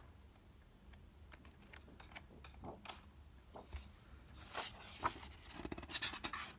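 Paper pages of a large hardback book being turned by hand. A few soft ticks of handling come first, then page-turning rustles and swishes in the last two seconds, which are the loudest part.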